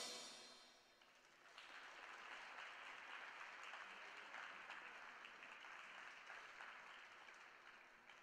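The last of the music dies away at the very start. About a second and a half in, faint, thin applause from a small audience begins and fades out near the end.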